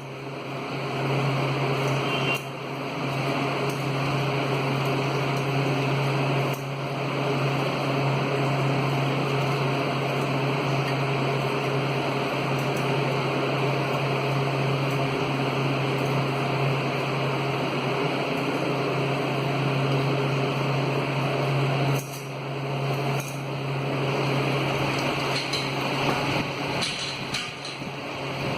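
Homemade spring-powered fan running, a steady low hum under a whirring rush of air and gearing. The sound drops suddenly three times, a few seconds in, near a quarter of the way and late on, and builds back up each time.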